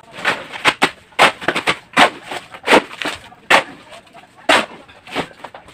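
Steel shovels scraping and slapping through wet concrete mix on bare ground as it is turned by hand, in a quick, uneven run of sharp scrapes and strikes.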